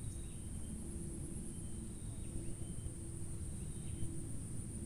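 Insects droning steadily at a high pitch, with short falling chirps repeating about once a second, over a low rumble of wind on the microphone.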